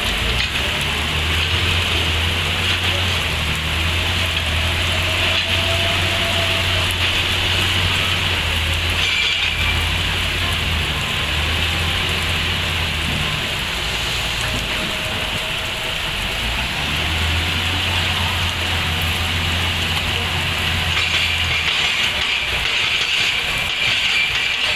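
Excavator's diesel engine running, its low drone swelling for several seconds at a time and easing off in between as the machine works, over a steady rushing hiss.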